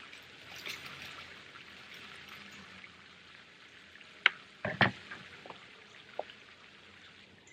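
Water pouring in a steady gentle stream onto the garden, with a few short knocks about halfway through.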